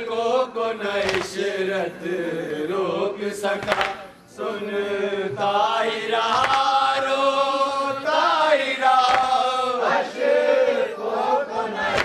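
A man chanting a Shia lament (noha) into a microphone from a book: a single male voice holding long, wavering melodic notes.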